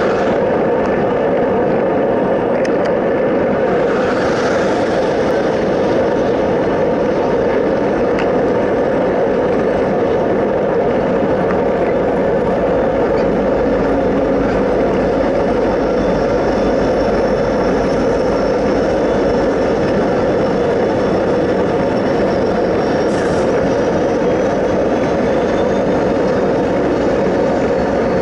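Steady wind and road noise from riding along a highway shoulder, with a low rumble building in the second half as a freight train draws alongside.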